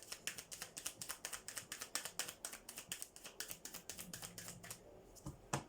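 A deck of oracle cards being shuffled by hand: a rapid run of light card clicks, about seven a second, stopping near five seconds in, followed by two sharper taps near the end.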